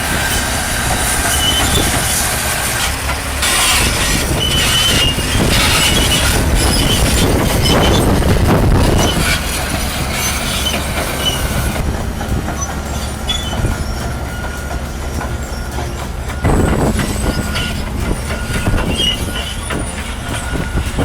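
Crawler bulldozer working under load: the diesel engine runs with a steady low rumble while the steel tracks squeal in short high-pitched bursts. The sound changes abruptly about twelve seconds in.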